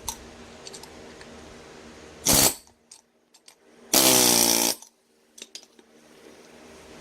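Hand tools working a Ural motorcycle's universal joint: a sharp tap just after the start, then two loud noisy bursts, the second one nearly a second long with a steady ringing tone in it, and a few faint clicks.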